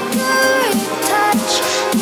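Electronic dance music: a synth lead with sliding notes over a steady beat of about two thumps a second.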